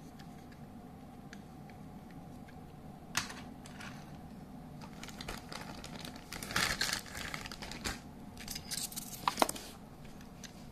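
Clear plastic bag crinkling and rustling in irregular bursts, mixed with light clicks of a hard plastic toy train car being handled, starting about three seconds in and ending a second before the end.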